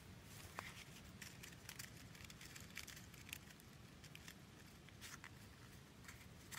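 Near silence: faint forest ambience with scattered soft ticks and crackles.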